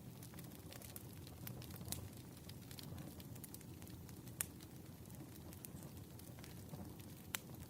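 Campfire crackling: a steady low rumble of burning with scattered sharp pops and snaps, the loudest about four seconds in and again near the end.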